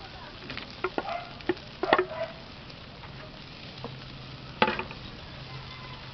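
Chicken and vegetables sizzling steadily in a hot wok with broth, with a few sharp clatters of stirring and of snow peas going into the pan, the loudest about two seconds in and again about four and a half seconds in.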